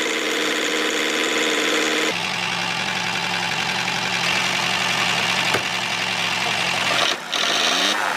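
A motor running steadily. Its tone changes about two seconds in and dips briefly near the end.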